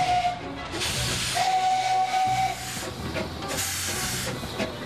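Replica of Stephenson's Planet steam locomotive hissing, releasing steam in bursts, with a steady whistle note sounding briefly at the start and again for about a second.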